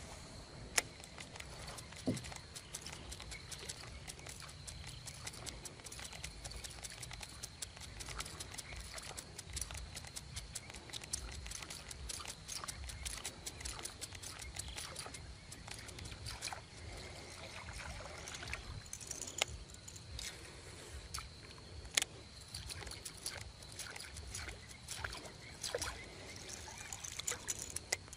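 Light water sloshing and trickling around a fishing kayak, with scattered small clicks and a few sharper ticks from handling the rod and reel, over a steady faint high-pitched whine.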